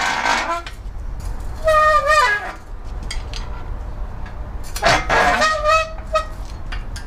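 Engine stand's rotating head squealing as a bare small-block Chevy 350 block is turned over on it: two long, wavering squeaks about three seconds apart, with a rough scrape at the very start.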